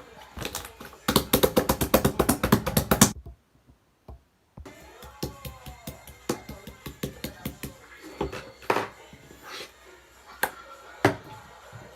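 Slime being squeezed and poked by hand, giving a quick run of crackling clicks and pops about a second in. The sound drops out briefly after that, then comes back as scattered pops and squelches.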